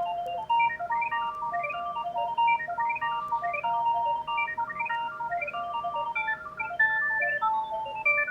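Panasonic GD75 mobile phone playing a ringtone: a fast electronic melody of short notes running up and down in repeating arcs, several notes at once over a held lower tone.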